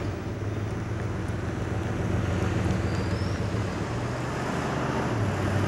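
Winnebago motorhome driving along: a steady low engine drone under rushing road and wind noise, slowly growing louder.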